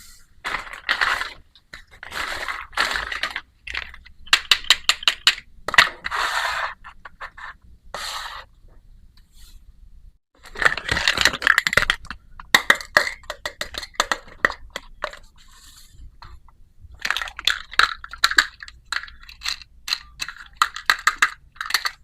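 Small plastic toy kitchen pieces and their packaging being handled, in clusters of sharp clicks and crinkling rustles with short pauses between them.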